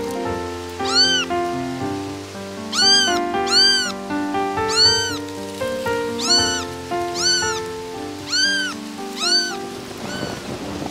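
A very young kitten meowing over and over, about nine short high-pitched cries that each rise and fall in pitch, over background music.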